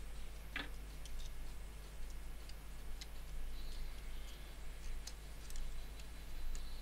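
Small clicks, taps and brief scrapes of a Vodafone SureSignal femtocell's plastic case and circuit-board parts being handled and fitted back together, the sharpest click about half a second in. A steady low hum runs underneath.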